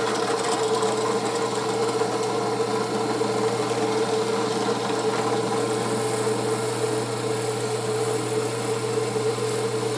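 Drill press running steadily with a hum, its hole saw fed down into a plywood disc to cut a round hole.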